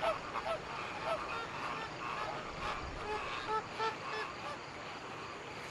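A flock of large birds calling as it flies over, a string of short calls a few per second that stops about four seconds in.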